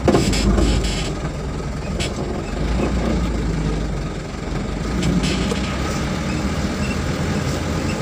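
Truck driving on a rough dirt road: steady low engine and road rumble, with knocks and rattles as it goes over ruts. A loud jolt comes just at the start, and further knocks come about two and five seconds in.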